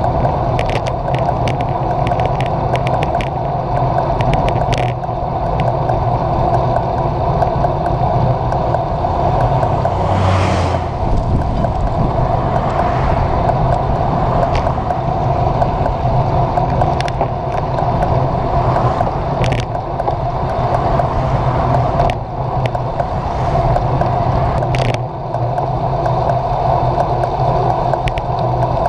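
Wind and road noise from a road bike in motion, heard through a handlebar-mounted camera: a steady rumbling rush with scattered small clicks and rattles from the mount. A brief louder swell comes about ten seconds in.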